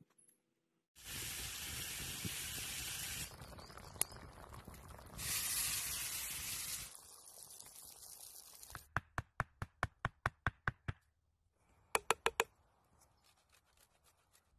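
Food sizzling in a hot pan over a campfire, in two loud spells of hiss that start and stop suddenly. After them come about ten quick sharp clicks in a row, roughly five a second, and then a short cluster of knocks.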